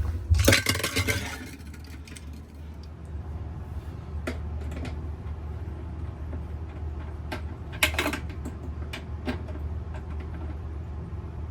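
Metal clatter of a socket set being handled in the first second or so. Then a few scattered light metallic clicks of a 10mm socket and ratchet being fitted, over a steady low hum.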